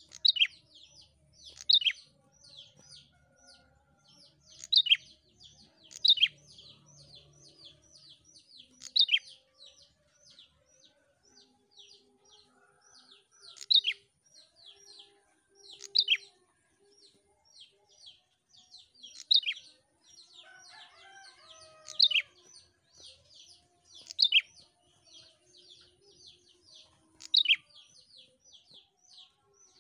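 A caged prenjak, a small rufous-capped songbird, singing: a rapid run of fainter high chips punctuated every two to three seconds by a loud, sharp call that drops in pitch.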